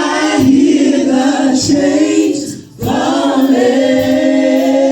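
Gospel choir singing held notes in two long phrases, with a short breath between them about three seconds in.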